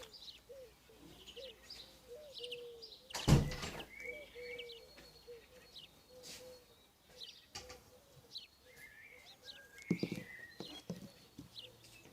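Small birds chirping repeatedly in the background, with a sharp knock about three seconds in and a few lighter knocks around ten seconds.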